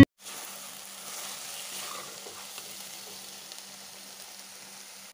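Grated carrot mixture for gajar ka halwa sizzling steadily as it cooks in a kadhai, over a faint low hum.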